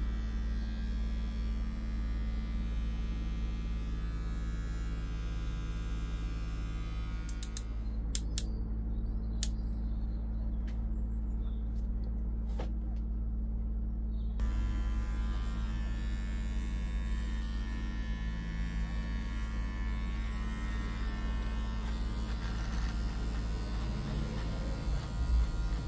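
Electric hair clippers running with a steady buzz, with a few sharp clicks about eight to ten seconds in.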